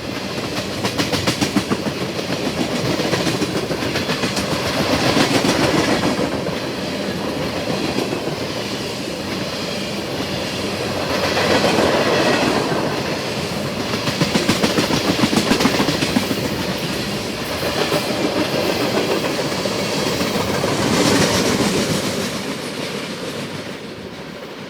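Freight train of tank cars rolling past, wheels clattering over the rail joints, the sound swelling and ebbing every few seconds as the car trucks go by. It fades near the end as the train moves off.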